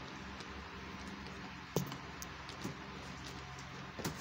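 Faint handling noise of a spinning reel being fitted into a rod's reel seat: a few light clicks and knocks, one a little under two seconds in and another near the end, over a steady low hum.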